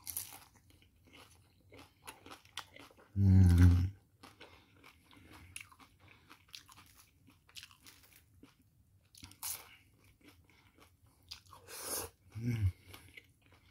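Close-up crunching and chewing of crispy fried chicken taquitos (rolled fried tacos), with many short crisp crunches as the tortilla shell is bitten. A brief low vocal sound from the eater comes about three seconds in, and a weaker one near the end.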